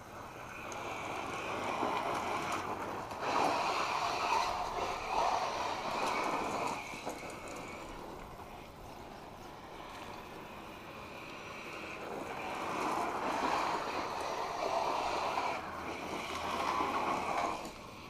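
Electric 1/8-scale RC car with a Castle Sidewinder 2200 kV brushless motor running on a gravel driveway, motor and tyres growing louder and fading away twice as it passes.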